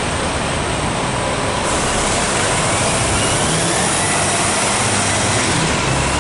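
Mercedes-Benz Arocs concrete mixer truck's diesel engine running as the truck drives past, a steady dense noise that gets a little louder about two seconds in.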